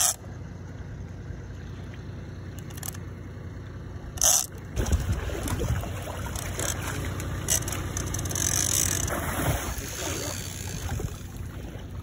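Scraping and sloshing water noise as an angler wades in the shallows, working a heavy overhead reel against a hooked shark. There is one sharp click about four seconds in, and after it the noise grows louder and rougher.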